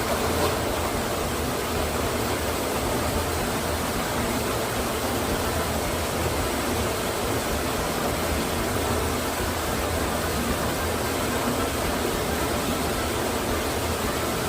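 A waterfall's water rushing steadily, an unbroken wash of noise.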